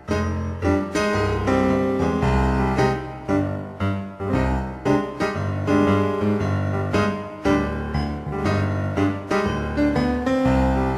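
Piano music: chords and notes struck in a steady run, about two attacks a second.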